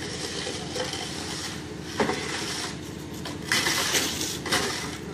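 Concrete mixer truck running steadily while concrete is poured down its chute, with sharp metal clanks about two seconds in and again near the end, and scraping between them.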